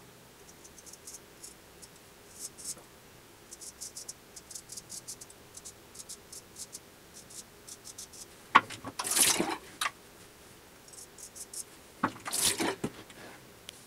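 Dovo 5/8 straight razor scraping through lather and stubble in many short, quick strokes. About eight and a half seconds in, and again near the end, water runs briefly at the sink, as for rinsing the blade.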